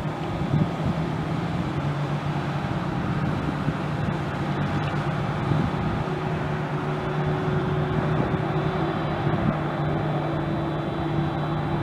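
Distant jet engines of an Airbus A300 freighter running at low taxi thrust: a steady rush with a low hum and a faint high whine. A second low tone comes in about six seconds in.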